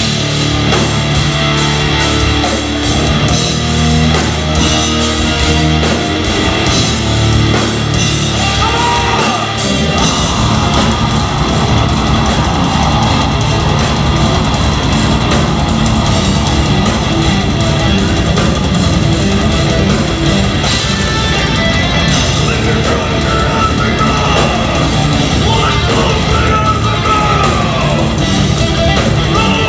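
Live progressive metal band playing with distorted guitars, bass and fast drums, with yelled vocals in places. About ten seconds in, the low end changes from held notes to a dense, rapid pulse.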